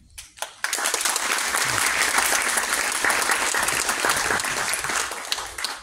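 An audience applauding, the clapping swelling in a little under a second in and dying away near the end.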